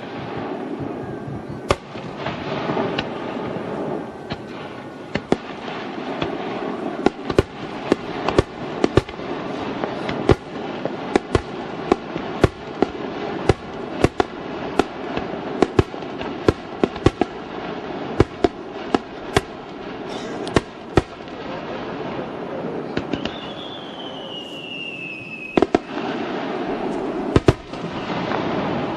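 Fireworks going off: dozens of sharp bangs at uneven intervals over a continuous dense crackle, with a falling whistle about 23 seconds in.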